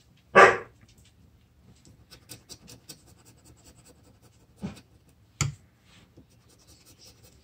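Folding knife blade scraping the latex coating off a lottery scratch ticket in quick short strokes, with two sharp knocks about five seconds in. A short loud noise comes about half a second in.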